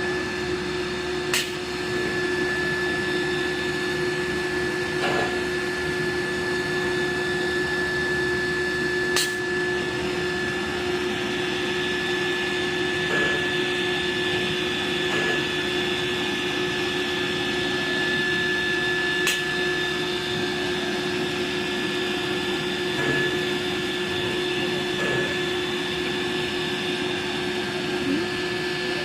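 Steady hum and whine of a CNC nesting router's machinery running, holding one pitch throughout, with a few sharp clicks.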